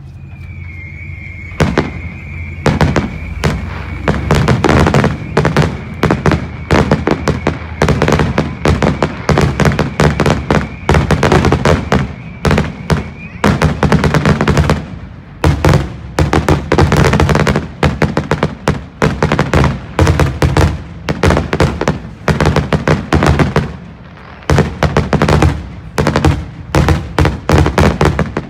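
Aerial firework shells bursting in rapid, overlapping bangs, thick and fast from about two seconds in. A steady high tone runs under the first half.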